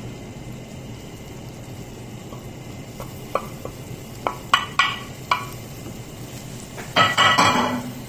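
Shredded chicken tipped from a glass dish into a stainless-steel pot of simmering sauce, over a steady faint sizzle, with a few light knocks of the dish against the pot between about three and five seconds in. Near the end a wooden spoon scrapes and knocks against the pot as stirring begins.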